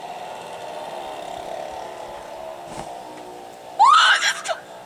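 A steady low hum, then about four seconds in a woman's loud, short shriek rising in pitch, her reaction to the freezing snow.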